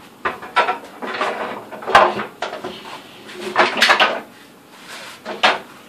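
Painted sheet-metal dust collector parts clanking and scraping as a large round housing ring is handled and set onto the blower, with several sharp knocks among the clatter.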